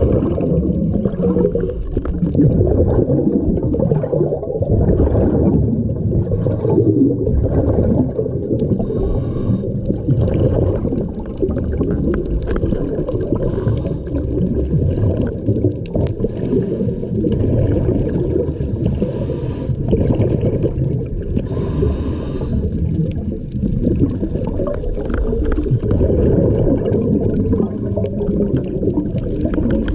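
Scuba diver breathing through a regulator underwater: a steady bubbling rumble, with a hissing breath surging every few seconds.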